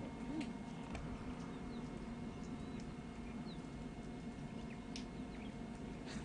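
Quiet outdoor ambience: a steady hiss with a faint hum, and a few brief high bird chirps and small clicks scattered through it.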